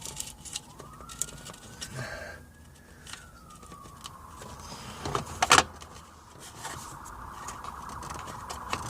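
A faint wailing siren that slowly rises and falls in pitch. Light clicks of parts being handled can be heard, and two sharp knocks about five seconds in are the loudest sounds.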